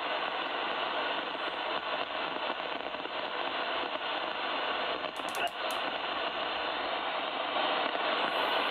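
Steady hiss of open-squelch receiver static from a CRT SS9900 CB transceiver through its external speaker, with no station coming back on the frequency. A few light clicks come about five seconds in as the radio's knob is turned.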